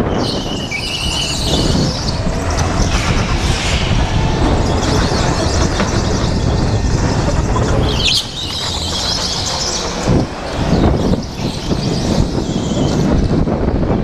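Go-kart driving hard through corners on a polished concrete floor, its tyres squealing twice: briefly about a second in, then for several seconds from the middle to near the end. Wind rumbles on the helmet-mounted microphone throughout.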